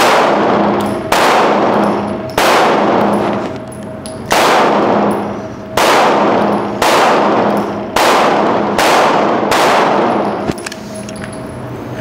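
A 9mm Glock 17-pattern pistol fired nine times in slow, uneven succession, each shot a sharp crack followed by a long echo off the walls of the indoor range.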